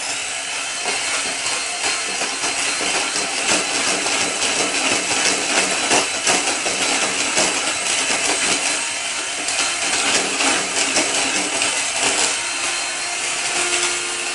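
Electric hand mixer running steadily, its beaters whisking flour into sponge-cake batter of whipped eggs and sugar, a continuous motor whine with a rattling of the beaters in the bowl.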